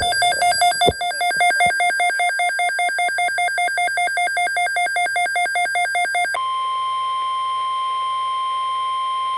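Weather radio alert signal: a rapidly alternating electronic tone pattern, about five pulses a second, switching about six seconds in to a steady single-pitched tone near 1 kHz, the NOAA Weather Radio 1050 Hz warning alarm tone announcing a new alert.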